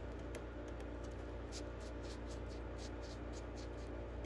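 Faint, scattered light clicks from the mechanism of an Olympia SM7 manual typewriter being handled and poked at, over a steady low hum.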